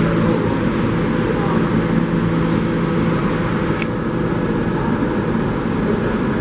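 Steady rumble and hum of a subway station, with a low hum that fades out about three seconds in.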